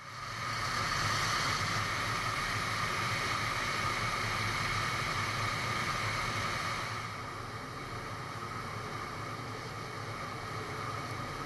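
Steady rush of wind noise from the airflow over a camera mounted on a glider's wing in flight, easing a little about seven seconds in as the glider comes down low over the grass.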